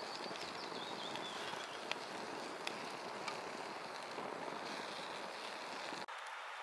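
Forest ambience: a steady rushing hiss, with a short bird chirp in the first two seconds and a few faint clicks. The low end of the hiss drops away abruptly about six seconds in.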